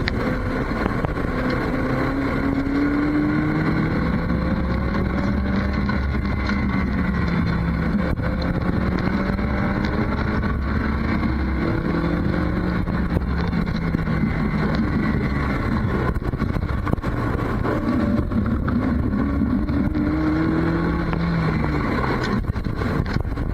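Toyota MR2 Spyder's four-cylinder engine pulling up through the gears while driving. The engine's pitch climbs and then drops at each shift, roughly every four seconds, over steady road rumble.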